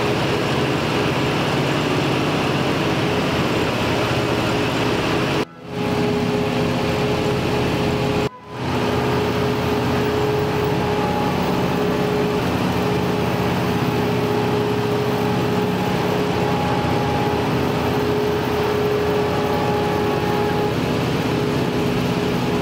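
Lockheed Super Constellation's four Wright R-3350 radial piston engines and propellers droning steadily, heard inside the passenger cabin in flight. The drone cuts out briefly twice, about a quarter and a third of the way in.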